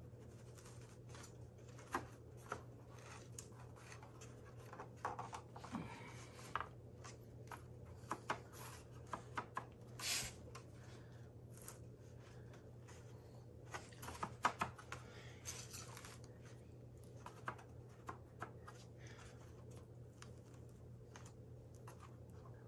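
Scattered light scrapes, taps and clicks as a speed square and hands are slid and pressed against the wooden frame of a glued cabinet door while it is checked for square, over a steady low hum.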